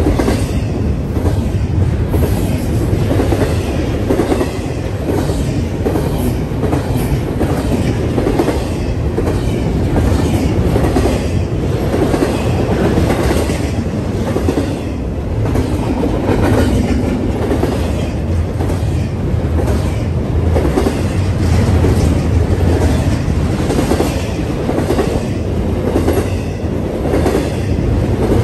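Double-stack container freight train rolling past close by: a loud, steady rumble of steel wheels on rail with a running clickety-clack of wheel clicks.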